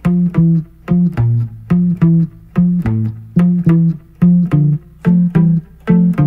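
Instrumental rock music: a plucked bass and guitar riff of short notes in pairs, repeating about once a second, with no singing.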